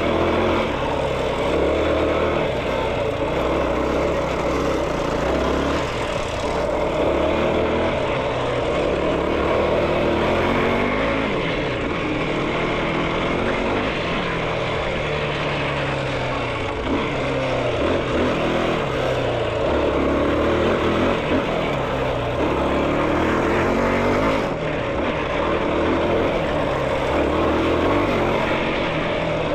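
Yamaha YFZ450R quad's single-cylinder four-stroke engine running under load while being ridden, its revs rising and falling again and again with throttle and gear changes.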